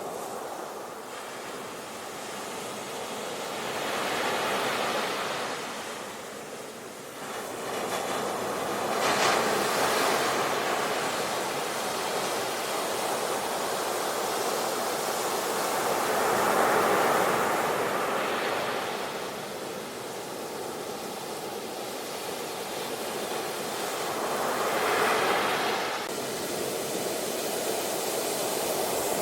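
Ocean surf: waves breaking and washing up in foam, a steady rush that swells and fades again every few seconds.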